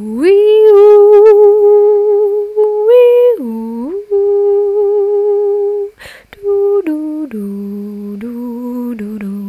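A woman's voice singing a wordless tune in long held notes with a slight waver. It slides up to a high note at the start, dips low and climbs back about four seconds in, and drops to a lower held note near the end.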